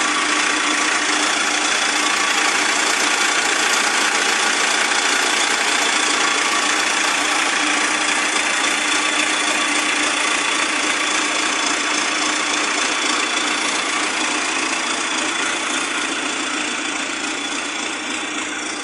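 Massey Ferguson 292 tractor's diesel engine running steadily, fading a little near the end; the owner presents it as running in full working order.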